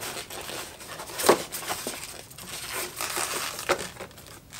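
Cardboard box and packing inserts rustling and scraping as a small sewing machine is slid up out of its box, with a couple of sharper knocks, the loudest about a second in.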